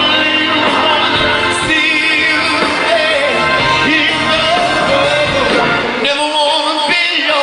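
Live band music: a man singing long, sliding, wavering lines into a microphone over held organ chords. The bass drops away about six seconds in.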